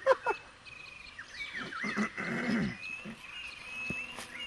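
Small birds chirping all through, with two short bursts of a wordless, whinny-like human voice, such as a laugh: a sharp one at the start and a longer one about two seconds in.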